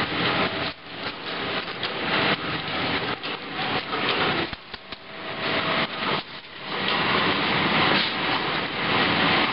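Bundles of thin bamboo skewers clattering and rustling as they are handled and sorted by hand, a dense rattle of many small clicks. It drops away briefly a few times, with a few sharp knocks near the middle.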